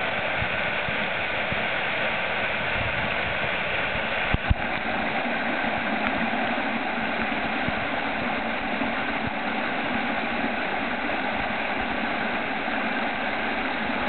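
Steady rushing of a small mountain waterfall pouring over rocks, with a brief knock about four and a half seconds in.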